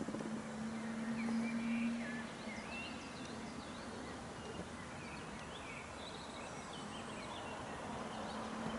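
Small birds chirping repeatedly in the open air, over a steady low hum that is strongest in the first two seconds and comes back near the end.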